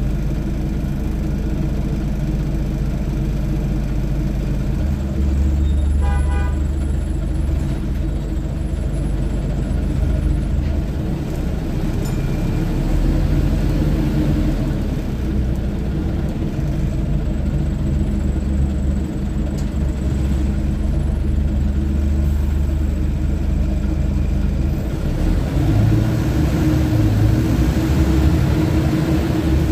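Scania OmniTown bus's diesel engine running as the bus drives, heard from inside the passenger saloon, getting louder near the end. A brief beep sounds about six seconds in.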